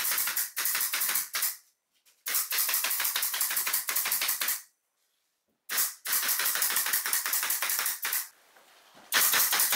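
Pneumatic nail gun firing in quick runs of sharp clacks, about a dozen a second, each run lasting around two seconds, with short pauses between runs, as it is worked along the seams of a plywood subwoofer box.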